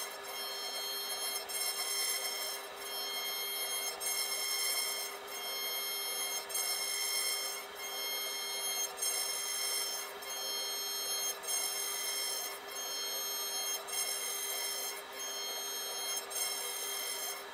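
CNC router spindle whining at a steady pitch while a tapered carving bit cuts into a wooden board. The scratchy cutting noise rises and falls, with a faint click about every second and a quarter as the bit sweeps through its carving passes.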